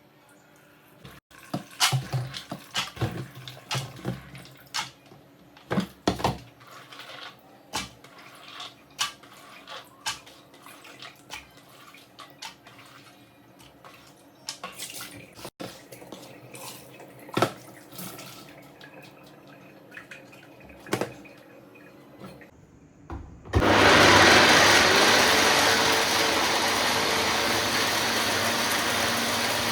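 Scattered clicks and knocks of things being handled, then near the end a tap is turned on and water runs steadily and loudly.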